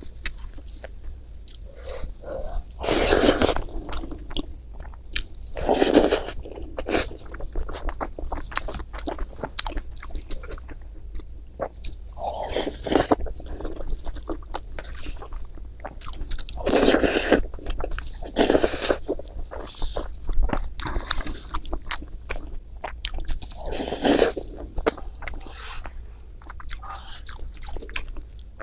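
A person eating noodles and rice, close-miked: steady chewing and biting, with a louder burst of about a second every few seconds.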